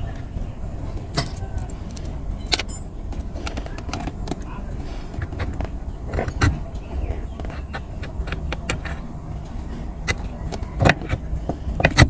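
Scattered sharp metallic clicks and clinks of a spring, washer and bushes being handled and worked off the pivot of a Proton Wira's manual gear lever, over a low steady rumble.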